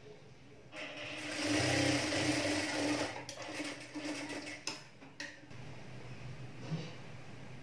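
Table-mounted electric sewing machine running a seam through blouse fabric. It starts about a second in, runs steadily for about four seconds, and stops with a couple of sharp clicks.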